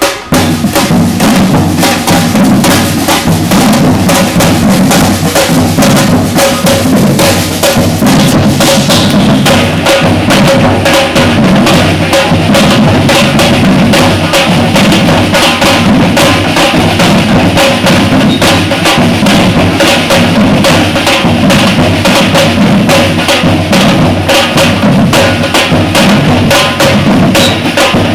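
Batucada samba percussion ensemble playing a loud, steady driving rhythm, with deep bass drums under snares and higher drums.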